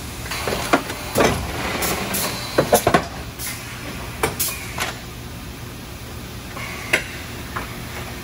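Industrial machine running behind its guard: a steady low hum with a cluster of sharp clanks and short hissing bursts in the first few seconds, more about halfway through, and one more near the end.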